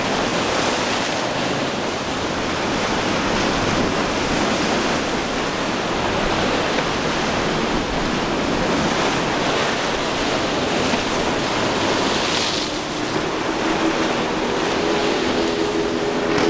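Rough surf breaking and washing, a steady rushing noise with wind on the microphone. Near the end the steady hum of a motorboat's outboard engine comes in over the surf as the boat runs close by.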